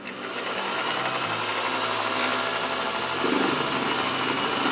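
Mini lathe running, spinning a square aluminium block in its three-jaw chuck. About three seconds in, a rougher noise joins the motor as the facing tool starts an interrupted cut across the block's corners.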